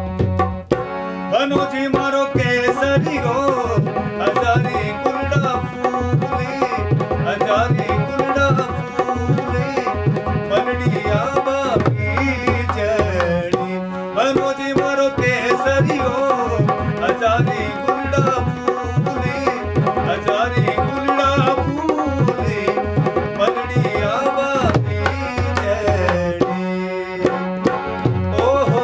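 Rajasthani folk music: a dholak drum beats a quick, steady rhythm under a harmonium and a bowed string instrument carrying a wavering melody. The drum pauses briefly twice, leaving a low held tone.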